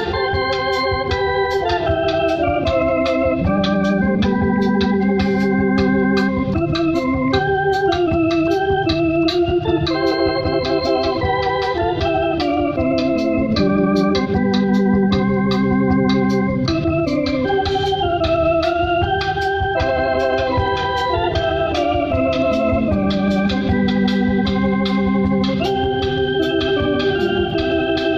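Two-manual electronic church organ playing a slow hymn tune in sustained chords, with a held low note under them and a wavering tremolo on the tone.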